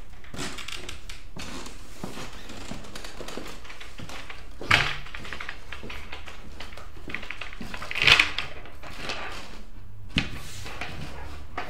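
A large painted board being handled and shifted about, with rubbing and scraping and three louder knocks, about five, eight and ten seconds in, over a steady low hum.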